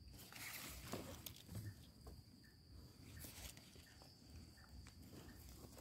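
Near silence: faint rustling and small ticks of dry grass and leaf litter as a termite mushroom clump is handled, over a steady high insect drone.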